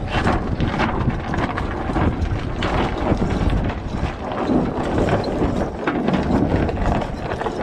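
Wind buffeting the microphone, with the catamaran's headsail flapping and rustling in the breeze.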